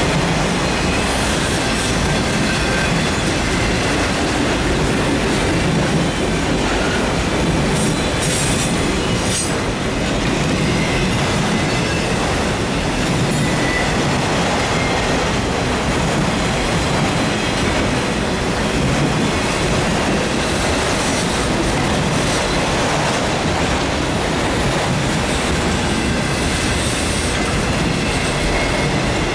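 Freight train of enclosed autorack cars rolling past at close range: a steady rumble of steel wheels on the rails with clickety-clack, and a faint high wheel squeal now and then.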